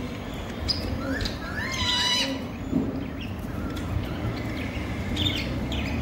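Baby cockatiel begging calls: a few rising, wavering calls, the loudest about two seconds in and more near the end. The chick is hungry and asking its parents to feed it.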